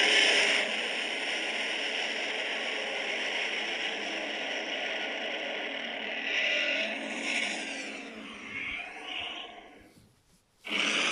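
A custom Godzilla 2000 monster sound effect: one long, harsh, sustained sound that starts suddenly, holds for about eight seconds, then wavers and fades out. After a brief silence a similar sound bursts in near the end.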